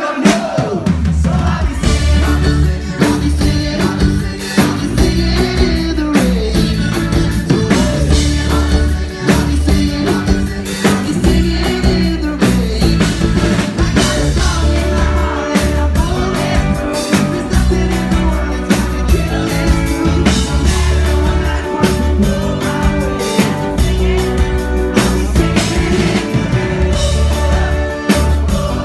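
Live pop-punk band playing loud, with electric guitars, a heavy bass line and a driving drum kit, and some singing over it. The full band comes in right at the start after the crowd has been singing alone.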